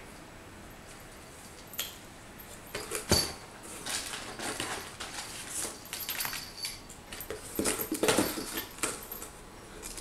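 Plastic packaging being handled: rustling and crinkling with scattered clicks, the loudest a sharp click about three seconds in.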